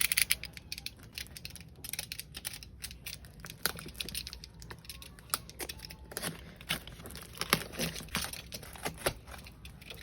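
A cardboard shipping carton being handled and opened by hand: irregular scratches, clicks and crinkles of cardboard, tape and plastic packing.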